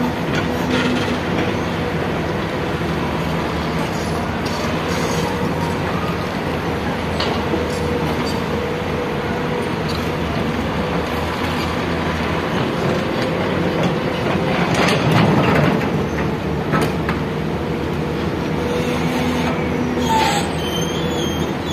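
Excavator working: its engine running steadily under a continuous mechanical din, with a few short metal knocks, the loudest about two-thirds of the way through.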